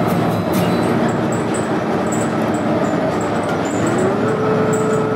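City bus interior noise: steady engine and road rumble, with a whine that rises in pitch about four seconds in and then holds steady.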